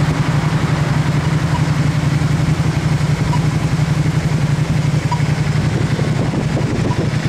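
Road traffic at a city intersection: car engines running and idling with a steady low rumble. A faint short beep from the pedestrian-crossing push-button repeats about every second and a half.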